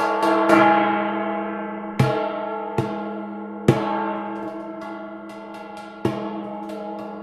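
Waterphone, its metal rods struck one after another in an uneven series, each strike ringing on in metallic, gong-like overtones that fade slowly. A steady low tone holds beneath the strikes.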